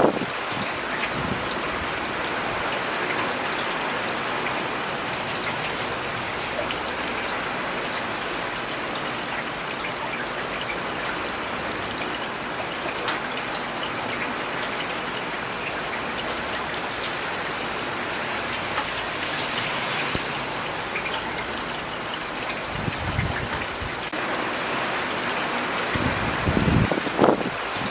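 Steady rain falling on city surfaces, a constant hiss with scattered drop ticks. A couple of deeper swells in the sound come through near the end.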